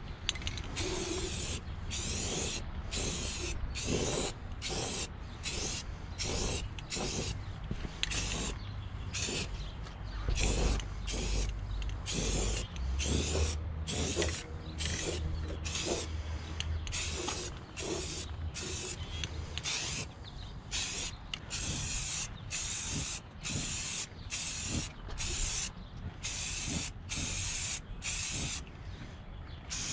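Aerosol can of automotive primer spraying in short hissing bursts, about one a second with brief gaps between them.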